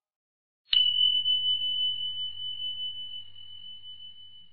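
A single high-pitched bell ding, struck sharply under a second in, then ringing on one steady note and slowly fading. It is an editing sound effect, laid over a subscribe-button graphic.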